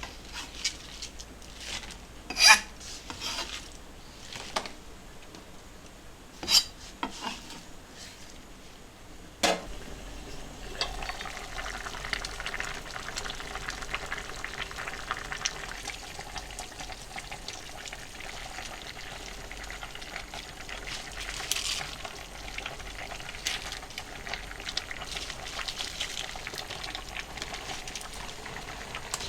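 A few sharp clacks of a utensil against a pan, the loudest about two and a half seconds in. From about ten seconds in, food sizzles steadily as it fries and is stirred.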